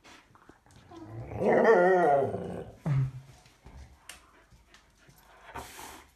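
A dog giving a drawn-out moaning vocalisation whose pitch wavers up and down for about a second and a half, then a short low grunt. A brief rustle-like hiss comes near the end.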